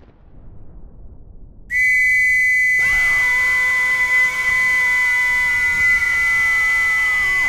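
Horror-film sound design: a piercing, steady, whistle-like high tone starts about two seconds in. About a second later a man's long, held scream joins it, sinking slightly in pitch. Both cut off suddenly.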